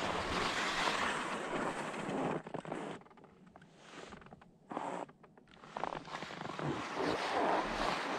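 Skis scraping over firm, wind-packed snow, with wind rushing on the microphone. The noise drops away for about three seconds in the middle, broken by one short scrape, then comes back.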